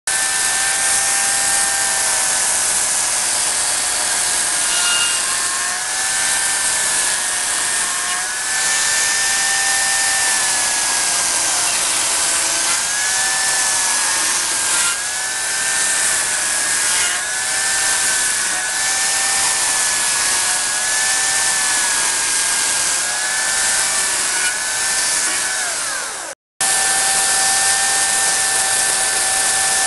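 Dolmar corded electric chainsaw running continuously while hollowing out a log, its motor whine dipping and recovering in pitch over and over as the chain bites into the wood. The sound cuts out briefly near the end, then the saw runs at a steady pitch.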